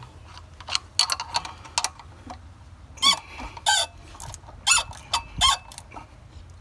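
Half-inch socket ratchet working the water pump pulley bolts: a few sharp clicks, then several short, high squeaks of metal as the bolts are turned.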